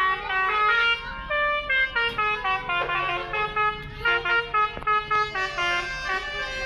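Basuri telolet bus horn, a set of electric multi-trumpet horns, playing a tune in quick stepped notes, several pitches sounding together.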